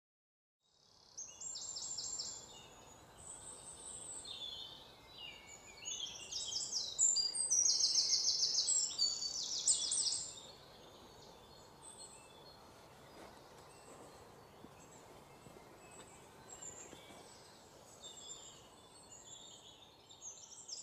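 Small songbirds chirping and trilling in high, rapid phrases over a faint steady outdoor hiss, busiest and loudest between about six and ten seconds in.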